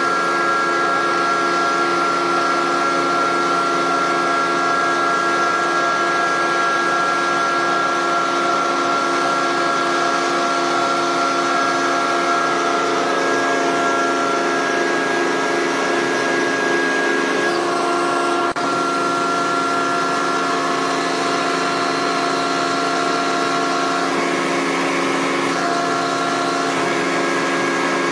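Roadheader running: a steady mechanical hum and whine with several held tones as its cutting head turns and its boom is worked by remote control. The sound breaks off for a moment about two-thirds of the way through, then carries on unchanged.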